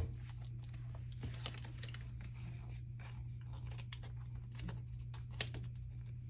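Faint handling of a ring binder: paper cards and a plastic pocket being opened and handled, giving a scatter of light clicks and rustles over a steady low hum.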